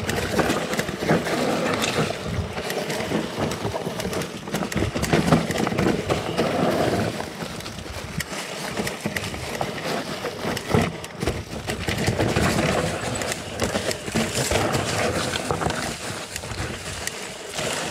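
Santa Cruz Bullit electric mountain bike rolling down a dry, leaf-covered, stony singletrack: tyres crunching over leaves and stones, with many sharp knocks and rattles as the bike hits bumps.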